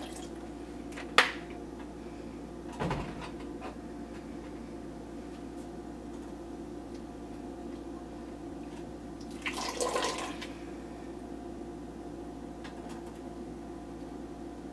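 Dye water sloshing and splashing in a stainless steel pot as vinegar is stirred into an acid dye bath and a knitted wool sock blank is moved around in it. A sharp clink of the spoon on the pot comes about a second in, and a louder splashing comes near the end, over a steady low hum.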